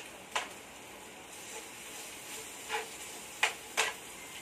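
Meat frying in a pan on an induction cooker, a steady sizzle, with a spatula knocking against the pan a few times as it is stirred.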